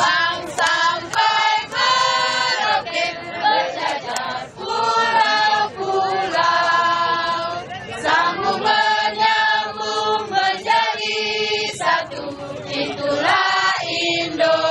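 A large group of voices singing a song together, unaccompanied, in phrases of long held notes.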